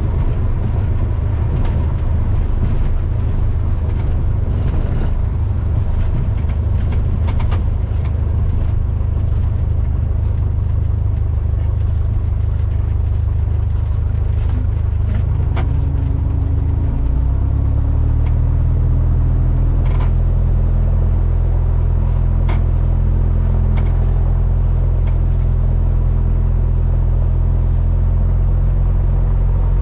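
Cessna 172N's four-cylinder piston engine and propeller heard from inside the cabin, a steady low drone. About halfway through, the engine note shifts in pitch and gets slightly louder as the power setting changes.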